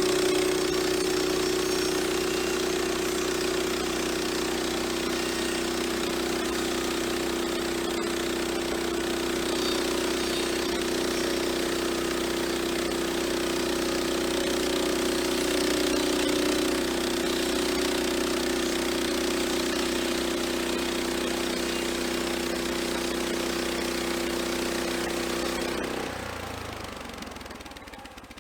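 Gasoline engine of an EZ Boardwalk Jr. band sawmill running steadily while the band blade saws through knotty yellow pine. Near the end the engine note drops and winds down, fading out.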